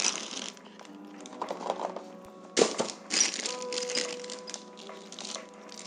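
Cardboard box and its packing being handled and opened, rustling and crinkling in short spells, with one sharp click or knock about two and a half seconds in.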